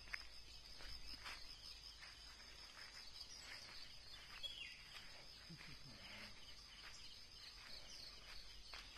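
Faint outdoor ambience, close to silence: a steady high insect drone, with a few faint bird chirps and light scattered clicks.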